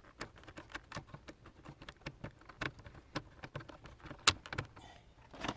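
Irregular small clicks and taps of hand tools and plastic trim while the lower dash panel's bolts are taken out, with one sharper click about four seconds in.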